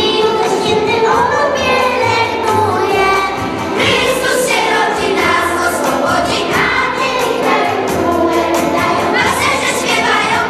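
Children's choir singing a Christmas carol to backing music, with a girl singing into a microphone.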